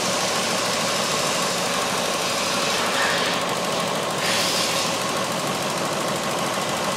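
Ford C-Max 1.6 petrol four-cylinder engine running at idle, a steady even drone.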